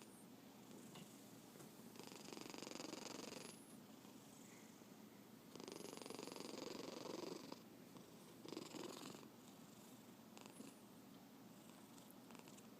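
A sleeping cat snoring softly: three snores about three seconds apart, the first two a second or two long and the third shorter, then only fainter breathing.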